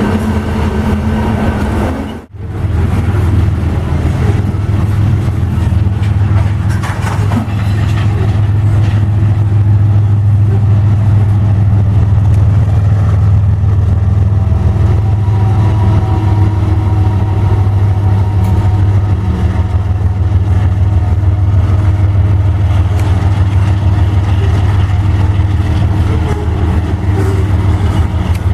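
Freight-train diesel locomotive running close by with a loud, steady low rumble and drone. The sound drops out for a moment about two seconds in, then carries on unchanged.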